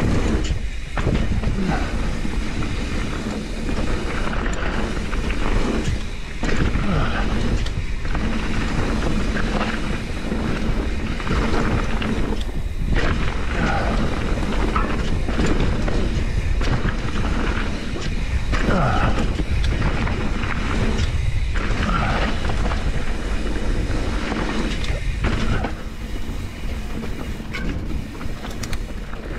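Trek Slash full-suspension mountain bike riding fast down dirt singletrack: a steady rumble of tyres on dirt and wind on the microphone, with scattered knocks and rattles as the bike goes over bumps.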